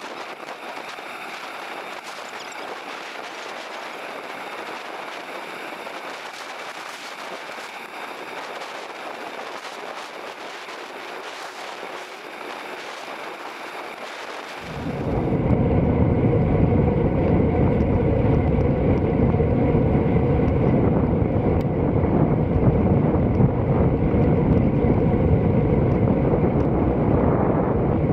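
Wind on the microphone of a camera riding along on a bicycle: a steady hiss at first, then about halfway through it turns abruptly into much louder, low wind buffeting that lasts to the end.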